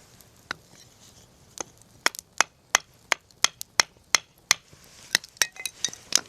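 Firewood being chopped in quick, light strokes: sharp wooden knocks about three a second, then a looser, irregular cluster near the end.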